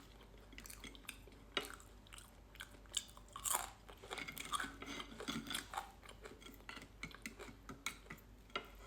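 A person chewing crunchy food close to the microphone: irregular soft crunches and mouth clicks, with one louder crunch about three and a half seconds in.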